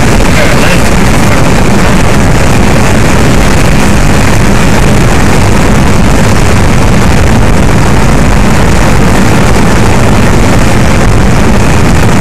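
Steady engine, tyre and wind noise inside a moving car's cabin, loud and unvarying on the camera's microphone.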